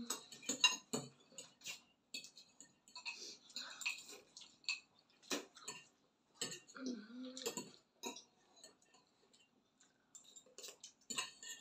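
Metal forks clinking and scraping against bowls of spaghetti as two children eat fast: a string of irregular short clicks. A brief voice sound about seven seconds in.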